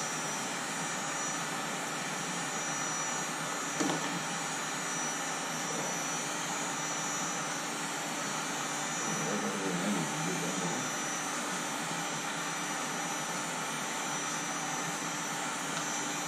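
Steady rushing hiss of a torch flame heating the crankshaft bolt of a 6.0 L LS V8 to soften the threadlocker behind it.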